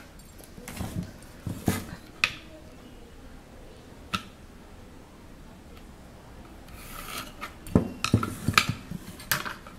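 Plastic ruler being shifted and set down against a painting board, with pencil scraping along its edge: scattered light clacks and short scrapes, a group about a second in, a single tap around four seconds, and another group near the end.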